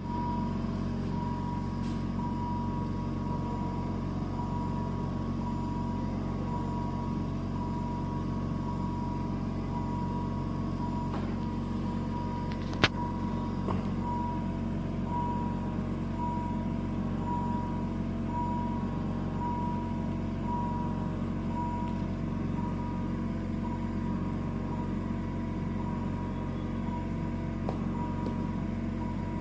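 Steady hum of neonatal intensive-care equipment, with a patient monitor's high alarm beep repeating about once a second, and one sharp click about 13 seconds in.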